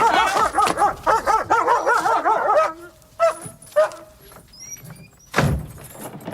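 A dog barking rapidly and excitedly, a fast run of yaps that breaks off after about two and a half seconds into a few single barks. Two heavy thumps come near the end.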